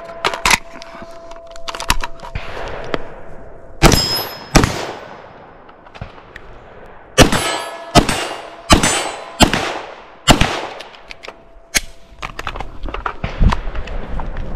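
Gunfire at steel targets: about a dozen sharp shots in uneven strings, handgun shots among them, with the steel plates clanging and ringing on after some hits.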